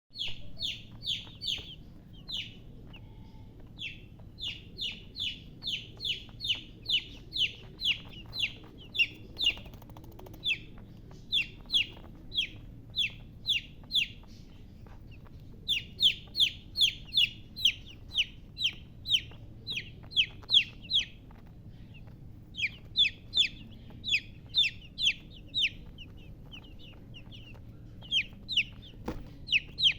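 Baby chicks peeping: a long series of short, high chirps that slide downward in pitch, about two to three a second, in runs broken by brief pauses.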